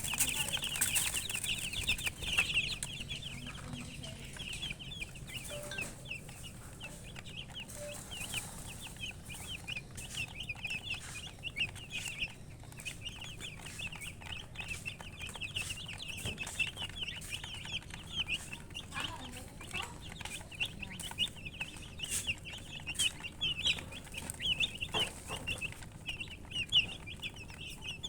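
A group of baby chicks peeping nonstop, a dense chorus of short, high chirps, with an occasional sharp tap.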